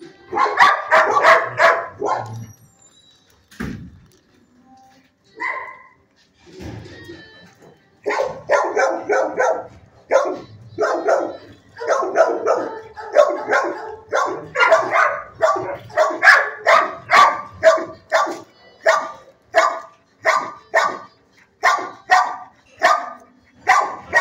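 Dog barking in a shelter kennel: a quick run of barks about a second in, a few scattered barks, then steady repeated barking about one and a half times a second from about eight seconds in.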